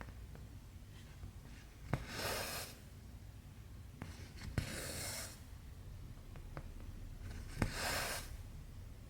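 Cross-stitching by hand: three times, about every three seconds, the needle pokes through the stiff cross-stitch fabric with a sharp tick and the cotton thread is drawn through after it with a short swish.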